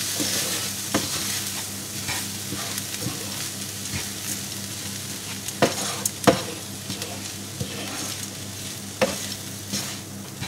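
Wooden spoon stirring a mix of chorizo, onion, corn kernels and breadcrumbs in a non-stick frying pan, the mix sizzling steadily. The spoon knocks against the pan now and then, with a few sharper knocks about halfway through and near the end.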